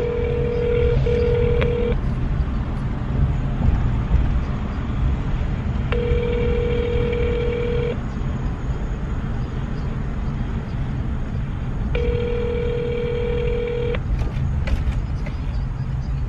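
Telephone ringback tone heard through a phone's speaker: three rings, each about two seconds long with about four seconds between them, the sign that the call is ringing at the other end and has not been answered. A steady low rumble sits underneath.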